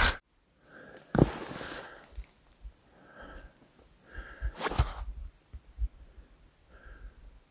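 Faint handling noise close to the microphone: soft rustles and breaths with scattered knocks, the sharpest about a second in and another near five seconds.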